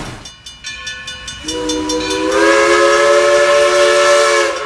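Steam locomotive running with a fast rhythmic clatter. About a second and a half in, its chime whistle sounds a chord of several notes, rises slightly in pitch as it opens fully, is held for about three seconds and then cuts off.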